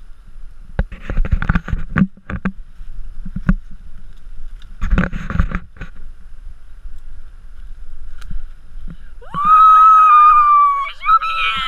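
Footsteps running through dry leaves and twigs on a forest floor, in short bursts. About nine seconds in, a trailing dog gives a long, high-pitched cry that rises at its start and is held for about a second and a half. More wavering whines follow near the end as it reaches the hidden person at the end of the trail.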